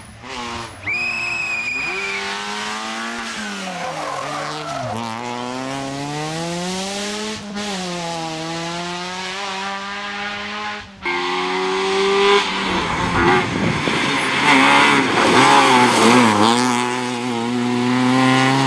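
Opel Astra rally car's engine revving hard, its pitch rising and falling through gear changes, with a short high tyre squeal about a second in. About eleven seconds in the sound cuts abruptly to a louder, closer run with the engine revving busily.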